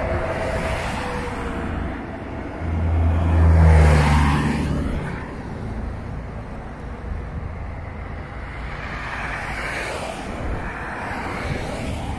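Road traffic. A vehicle passes close by about three seconds in, its low engine note the loudest sound, and a fainter vehicle passes near ten seconds.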